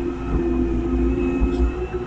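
Volvo excavator's diesel engine running with a steady hum and whine, heard from inside the operator's cab while the machine works. Under it is a deep rumble.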